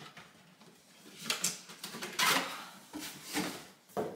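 Cardboard helmet box being opened by hand: the flaps and lid scrape and rustle in a series of short, irregular rubs and knocks, loudest a little past the middle.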